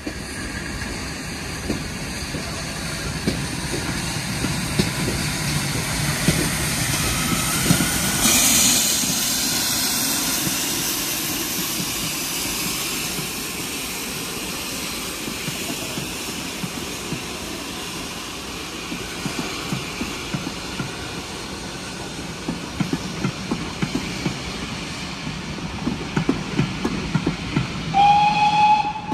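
Two steam locomotives double-heading a passenger train pass close by, with a loud burst of steam hiss about eight seconds in. The coaches follow with a regular clatter of wheels over rail joints. A brief high tone sounds near the end.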